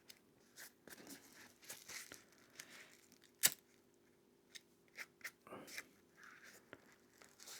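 Soft rustling and scattered small clicks of hands working loose threads on a backpack's nylon shoulder-strap webbing, with one sharper click about three and a half seconds in. A faint steady hum runs underneath.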